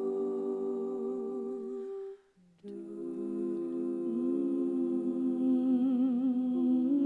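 Women's a cappella group humming sustained chords with vibrato. The chord cuts off about two seconds in, and after half a second of silence a new chord comes back in and is held.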